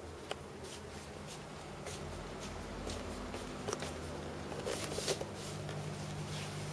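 Handling noise from a handheld camera: a few light clicks and rustles, the sharpest near the middle, over a steady low hum.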